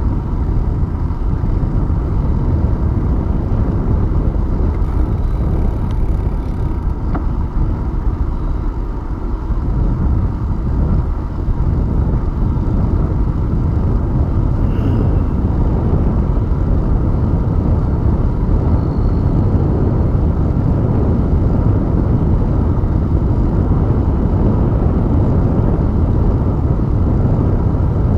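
Loud, steady wind rush buffeting the microphone of a handlebar-mounted camera on a moving bicycle, a low, even rumble.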